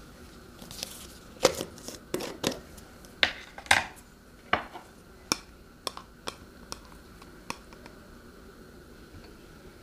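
Glass jar handled with sharp clinks and knocks, its plastic lid coming off and set down, then a metal spoon tapping lightly against the glass while scooping food out.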